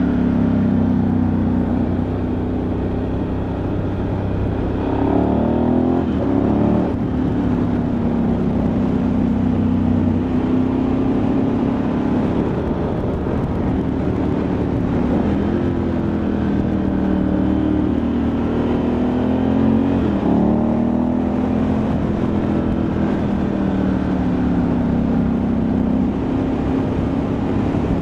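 Ducati Multistrada 1100S air-cooled L-twin running on the road, its pitch rising and falling as the revs change, with quick jumps in pitch about five seconds in and again about twenty seconds in, as at gear changes.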